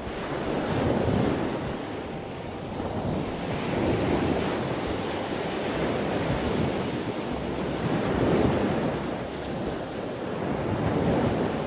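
Ocean surf: a steady rush of waves that swells and eases every few seconds.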